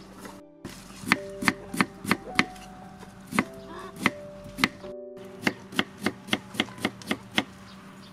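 Kitchen knife slicing fresh bamboo shoot on a wooden chopping board: sharp, separate chopping strokes, coming faster in the second half at about three a second.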